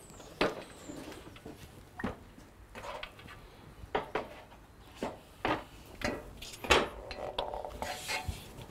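Aluminium pergola frame parts being handled, giving a string of sharp knocks and clicks that come closer together in the second half.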